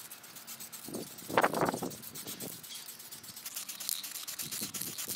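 Aerosol can of matte black spray paint being handled and sprayed over the 3D-printed plastic parts: a few short bursts of hiss and rattle in the first half.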